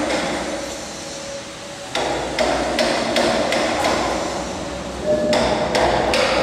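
Repeated hammer blows, about two to three a second, each followed by a short ringing tone; they pause for about a second and a half soon after the start, then carry on.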